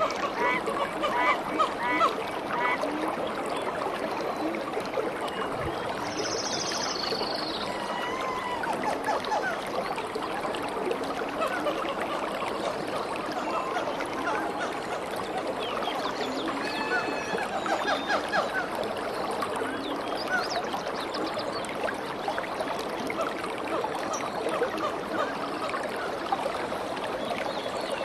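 Shallow mountain stream running over rocks, a steady rush of water, with many short animal calls over it, a quick repeated run of them near the start.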